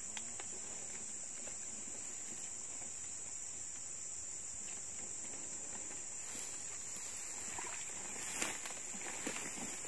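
Insects trilling in a steady, unbroken high-pitched chorus, with a couple of short knocks or rustles near the end.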